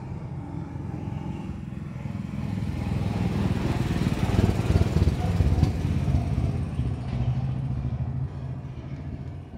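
A motor vehicle passing: a low engine rumble that swells to its loudest about halfway through and then fades.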